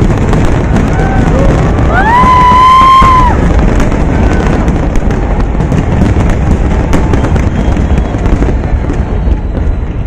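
Aerial fireworks bursting in quick succession, a continuous rumble of booms with crackling. About two seconds in, a spectator gives a long high whoop that rises and holds for about a second. The booms thin out near the end.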